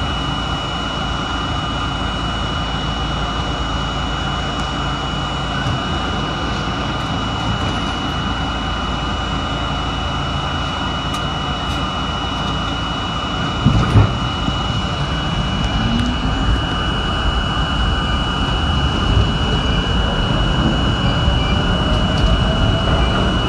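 R32 subway train running through the station and into the tunnel, heard from inside the front car: steady wheel-on-rail rumble and running noise with a steady high tone over it. A knock comes about two thirds of the way in, then a whine rises in pitch as the train picks up speed.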